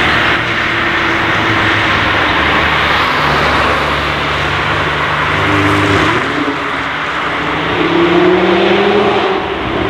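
Stage 2 Audi RS3's turbocharged five-cylinder engine, breathing through an aftermarket downpipe, accelerating with its pitch rising about halfway through and again, loudest, near the end, over a steady rushing noise.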